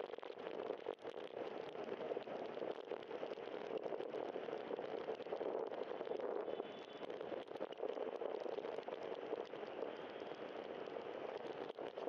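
Bicycle rolling on wet pavement: a steady hiss of tyres on the wet road, dotted with small rattles and clicks.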